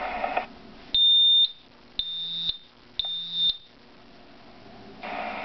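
Voice-equipped smoke alarm in drill mode sounding three high-pitched beeps, each about half a second long and a second apart: the temporal-three evacuation pattern, between its spoken warnings.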